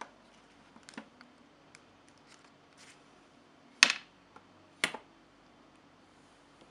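Light plastic clicks from handling a DJI Mavic Air 2S quick-release propeller, then two sharp clicks about a second apart as it is pressed and twisted onto its motor mount to lock it.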